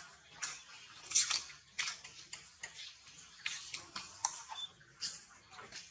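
Macaques swimming and paddling in a pool, their strokes making irregular small splashes and slaps on the water, a few every second.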